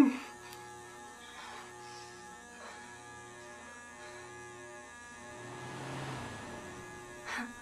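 A low, steady droning hum with a slow throb that pulses about once a second, and a hiss that swells up between five and a half and seven seconds in.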